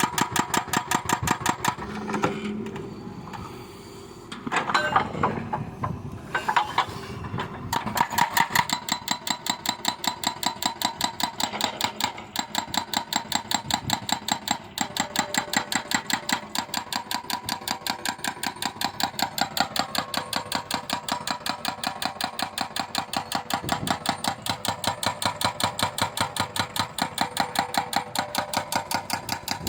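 A machine running with a rapid, even clatter and a steady whine, pulsing about three times a second; from about two to eight seconds in the clatter gives way to a rougher, uneven mechanical sound before settling back.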